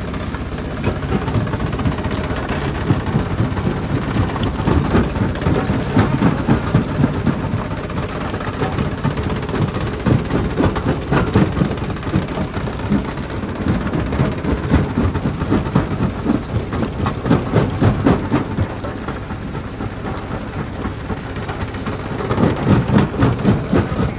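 Jaw crusher running and crushing rock: a continuous heavy rumble with dense, irregular cracking and crunching of stone, swelling louder at times.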